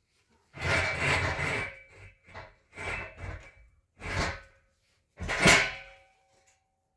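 Handling noises: about five scraping, rubbing bursts, the first about a second long and the last the loudest.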